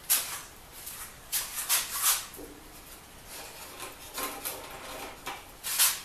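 A string of short scuffing and rustling noises from someone moving up to a bandsaw and handling it, with the loudest scuffs just after the start, about two seconds in, and near the end.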